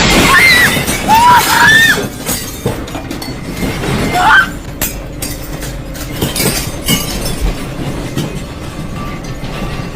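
A building shaking in a strong earthquake: a continuous rumble with dense rattling and clattering of loose objects. A few short screams come in the first two seconds and another rising scream about four seconds in.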